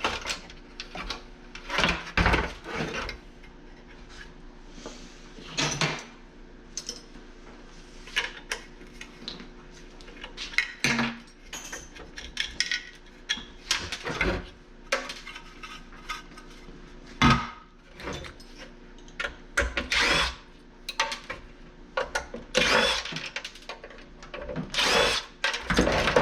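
Metal and plastic parts of a dehumidifier knocking, scraping and clattering at irregular moments as it is pulled apart by hand and with tools to free its electric motor. The loudest knock comes a little past the middle, with a cluster of longer scrapes near the end.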